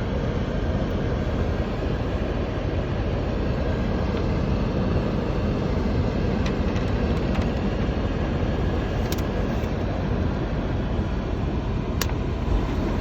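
Climate-control blower of a 1985 Mercedes 500 SEC blowing steadily on defrost, a constant rush of air with a low hum beneath. A few sharp clicks from the vent flaps and valves changing over, the clearest about nine and twelve seconds in.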